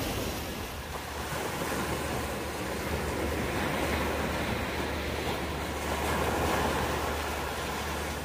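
Small sea waves breaking and washing up onto a sand beach, swelling and easing twice.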